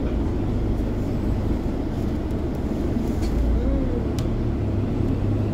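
Steady low rumble of a bus's engine and tyres heard from inside the passenger cabin as it drives along, with a couple of light rattles about three and four seconds in.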